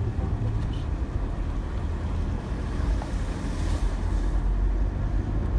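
Vehicle driving along a road: steady low rumble of engine and tyres.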